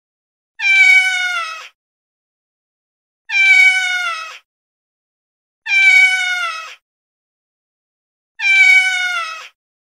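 Domestic cat meowing: four long meows about two and a half seconds apart, each falling slightly in pitch.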